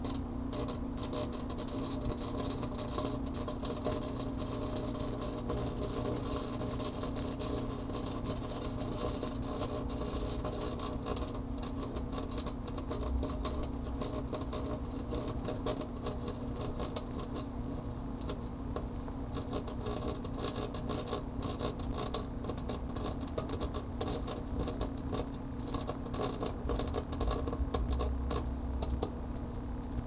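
Microwave oven running with a steady hum while the aluminium foil inside arcs and burns, giving a fast, irregular crackling and snapping that comes thicker in the second half.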